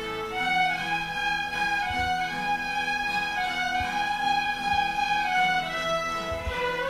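A fiddle ensemble playing a Cajun two-step, the fiddles carrying the melody over a steady strummed guitar accompaniment.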